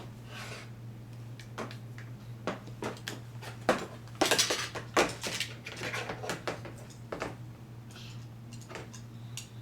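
Small hard toy pieces clicking and clattering as they are handled and set down, irregularly, with a longer rattle about four seconds in. A steady low hum runs underneath.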